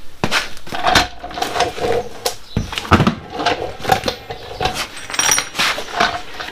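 Irregular knocks and clatter of a person sitting down on a roller seat and handling tools by a car wheel in a garage, with short pitched whines between the knocks.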